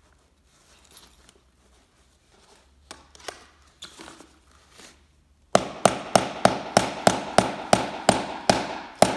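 A metal grommet-setting tool struck with a rubber mallet to set a grommet in a jib sail: a few light taps, then from about five and a half seconds in a fast run of about a dozen hard, ringing blows, three to four a second.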